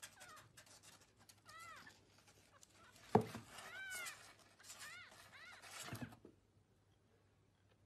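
A newborn kitten mewing: about five short, high mews that rise and fall, with a single sharp knock about three seconds in. The sound cuts off about six seconds in.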